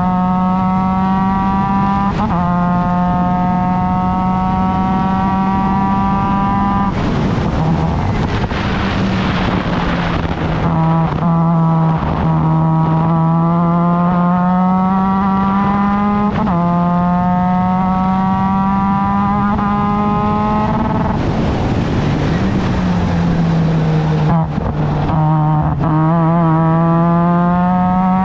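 Formula Mazda race car's rotary engine at full racing speed. Its note climbs steadily between sudden drops at upshifts and is twice broken by a few seconds of harsh rushing noise.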